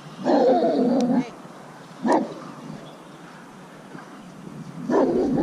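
Large mastiff barking three times: a longer bout near the start, a short bark about two seconds in, and another near the end.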